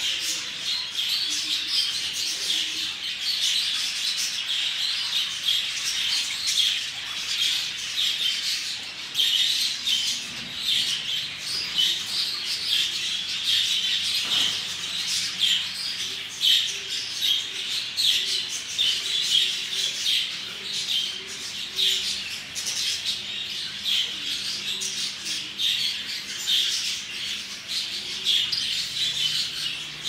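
A roomful of caged small birds, budgerigars among them, chirping and chattering all at once in a dense, unbroken chorus of high, short calls.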